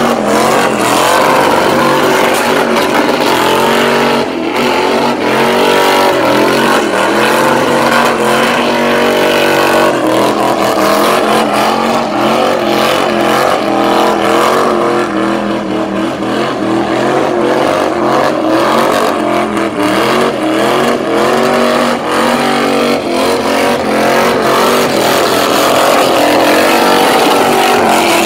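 1980 Chevrolet Camaro doing a burnout: the engine revs hard, its pitch climbing and dropping over and over, while the spinning rear tyres add a rough hiss.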